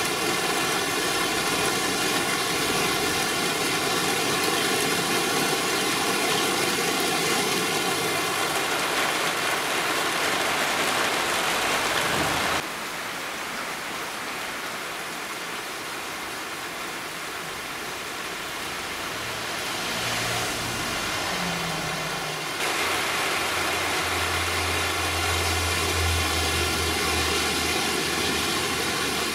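Heavy cloudburst rain pouring down in a steady hiss. It is quieter for a stretch in the middle, and a low engine-like hum comes in during the second half.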